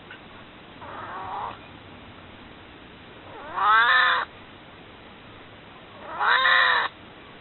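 An elderly house cat, nearly 22 years old, meowing to be picked up and held: a faint meow about a second in, then two loud, drawn-out meows, each rising and then falling in pitch.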